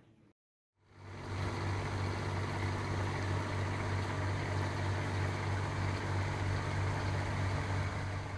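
Boat engine running steadily under way, a strong low drone with the rush of water underneath; it fades in about a second in and fades out near the end.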